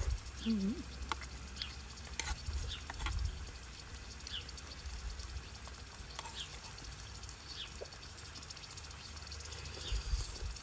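Wind rumbling on the microphone, over a faint sizzle from food on an outdoor grill. Short high chirps are scattered throughout.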